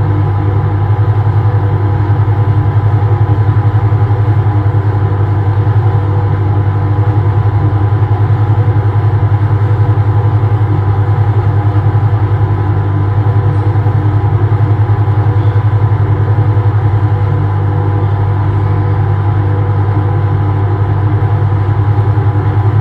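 Toilet-room ventilation fan humming steadily: a loud, deep, unchanging drone with a thin steady whine above it.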